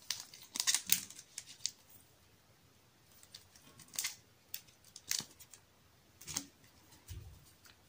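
Photocards being handled and sorted: short scrapes and light taps of card on card, coming every second or so, with a soft low thud near the end.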